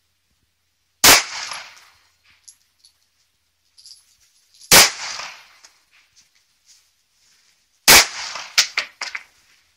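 Three pistol shots fired one at a time, about three to four seconds apart, each followed by a short fading echo. Two quieter sharp cracks come within a second after the last shot.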